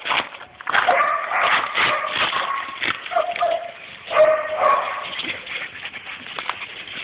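Spaniel puppies whining and yipping in short, high calls, among scratchy knocks and scrapes as they paw at a wire fence.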